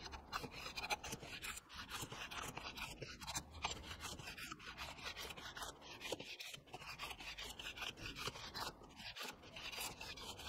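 Hand bench plane pushed in repeated short strokes along the edge of a birch board, shaving off thin curls to clean it up. A faint scraping hiss with each pass.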